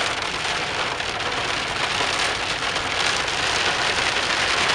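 Heavy rain coming down hard, a dense, even hiss with no let-up.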